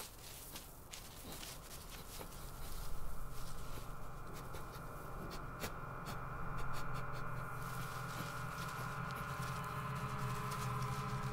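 Dry grass rustling and crackling as an Arctic ground squirrel stirs in its nest, waking from hibernation. Under it, steady sustained tones build and grow louder over the second half.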